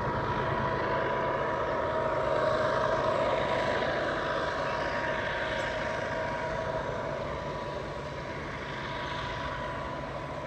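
Diesel locomotive engine running out of sight, a steady drone with a high, steady whine over it, slowly getting quieter.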